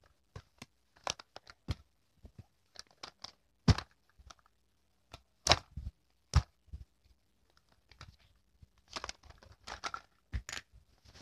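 A pink printed bag being handled and folded by hand: irregular crinkling and rustling, with a few sharp clacks, the loudest about a third of the way in and just past the middle.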